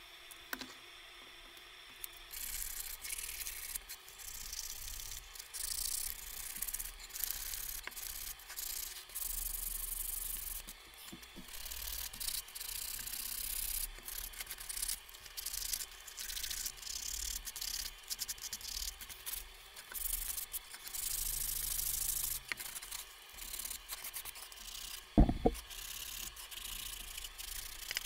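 Sandpaper rubbed by hand over a wooden pattern in repeated strokes, a hissing scrape that comes and goes. One sharp knock sounds near the end.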